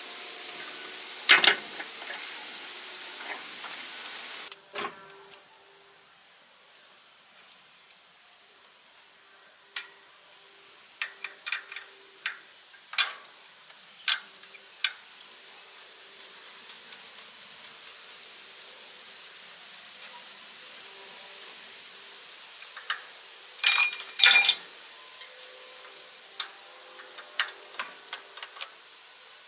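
Scattered sharp clicks and taps of hand tools on metal parts, with two louder ringing metallic clinks about three-quarters of the way through. A faint, high, steady insect-like trill comes and goes underneath.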